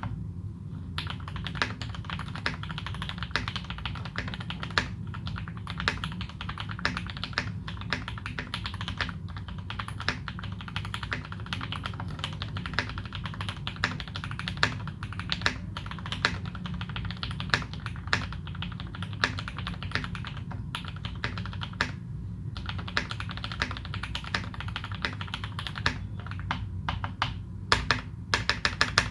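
Typing on a Leopold FC660M mechanical keyboard with modded Cherry Retooled Black linear switches and GMK Dolch keycaps: fast, continuous keystrokes with a brief pause about three-quarters of the way through. Near the end come a few louder, evenly spaced strokes.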